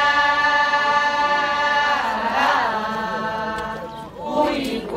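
Voices singing a long, held chant-like note that wavers briefly about halfway through and then steadies, with a new sung phrase starting near the end; traditional Zulu ceremonial singing.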